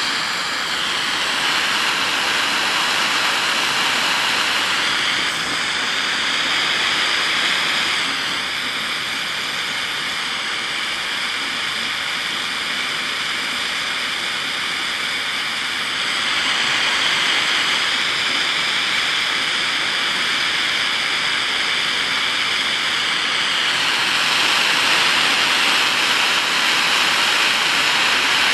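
Steady hiss of gas torch flames: an HHO (oxyhydrogen) water torch and a butane micro torch burning against a steel plate. The hiss shifts in level a few times. A faint thin whistle comes in about eight seconds in and fades out about sixteen seconds in.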